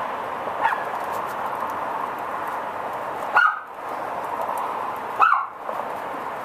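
A dog barking: one faint bark under a second in, then two loud, short barks about two seconds apart, over a steady background hiss.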